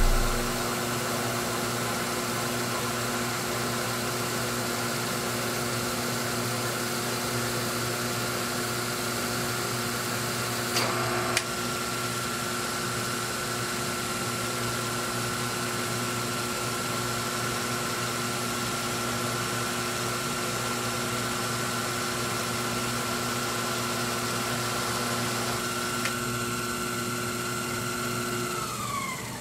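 Sherline 4400 lathe running: a steady motor whine over a lower hum as the spindle turns and the power feed drives the carriage through a light cut on a brass bar. There is a brief knock about eleven seconds in. Near the end the lower hum stops and the whine sinks in pitch as the spindle winds down.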